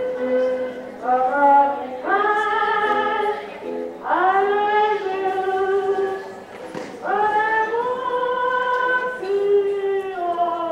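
Several voices singing slow, long-held notes in phrases of a few seconds each, with no clear instrument behind them.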